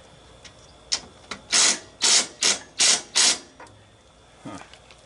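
Ryobi cordless 3/8-inch impact wrench fired in five short, loud trigger bursts, hammering on a motor mounting nut under a riding mower.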